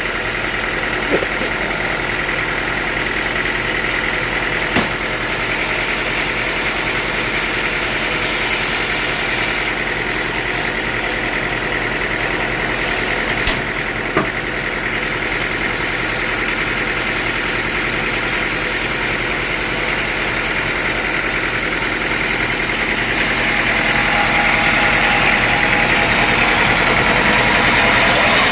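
Sawmill machinery running steadily between cuts, not yet sawing into the wood, with a few brief knocks. It gets a little louder in the last few seconds.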